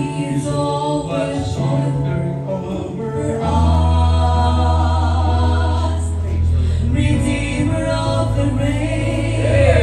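A man and a woman singing a gospel song together as a duet into handheld microphones.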